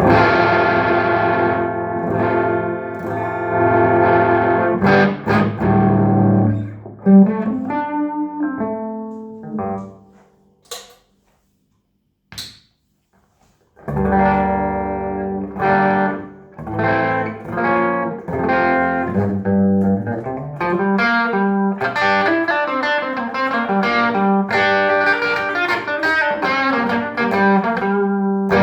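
Electric guitar played straight into a Trace Elliot Trident valve combo amp with 6L6 power valves, no pedals or effects. Chords ring out and fade until the sound dies away about ten seconds in, with two short clicks in the silence. Playing resumes with chords and single-note lines.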